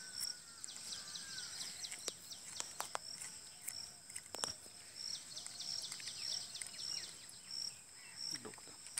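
Insects chirping in the background, a regular high chirp repeating a little under twice a second over a steady high buzz. A few faint clicks and taps come from hands working the metal clamp on the bicycle handlebar.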